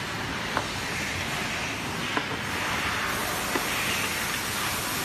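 A steady hiss with about three faint clicks, a screwdriver and small screws knocking against the projector's casing as its bottom cover is worked on.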